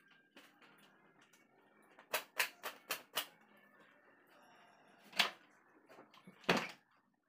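Sharp slaps of a towel being swung against long wet hair to dry it: five quick ones about two seconds in, then two more single slaps near the end.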